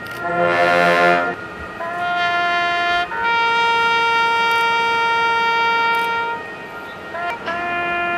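Solo military trumpet sounding a slow ceremonial call of a few long held notes, the longest held about three seconds in the middle, as honours are paid with a salute.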